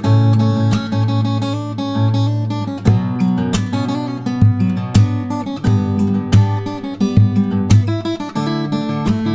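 Background music led by a strummed acoustic guitar, with chords struck at a regular pace.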